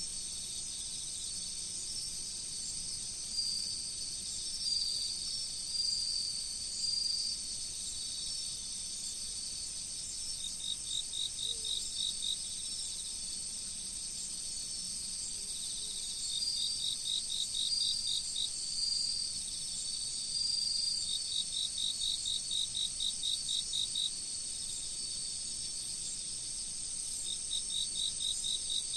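A chorus of autumn crickets and other singing insects: a steady, very high trill runs throughout, while other insects join in with short chirping phrases and with runs of evenly spaced chirps at several a second that start and stop every few seconds.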